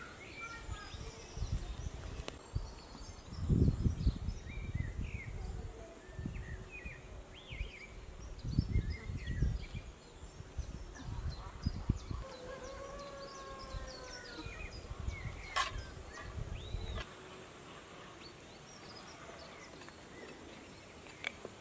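Outdoor ambience with birds chirping and calling, plus an irregular low rumble that makes up the loudest part of the sound and stops about three-quarters of the way through.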